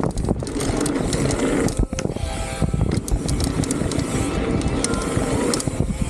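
Salsa Cassidy mountain bike riding a dirt trail: a steady rush of wind and tyre rumble on the camera's microphone, with the bike rattling and clattering over bumps.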